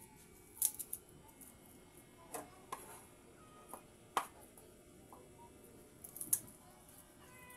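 Garlic cloves being peeled by hand: a few scattered, sharp clicks and crackles of the papery skin coming away, about one every second or so.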